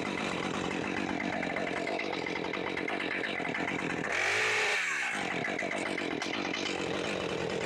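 Chainsaw running, revved up once for about a second near the middle, then eased back down.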